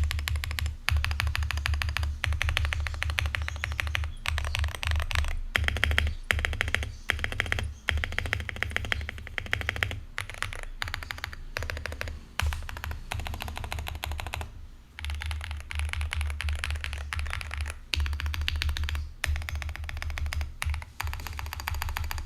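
Fast typing on an Akko 5098B mechanical keyboard with V3 Piano Pro linear switches: a dense stream of thocky key strikes in runs a second or few long, broken by short pauses, over background music.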